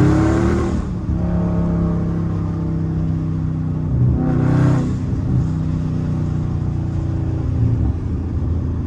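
A Dodge Charger Scat Pack's 392 Hemi V8 is driving under throttle. Its note rises in the first second, then holds fairly steady, with a brief whoosh about four seconds in.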